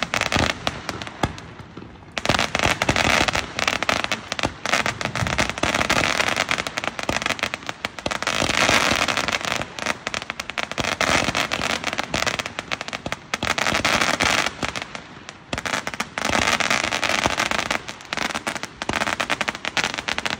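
Small consumer barrage firework firing a dense stream of rapid crackling pops, starting about two seconds in and going on in loud waves with brief lulls.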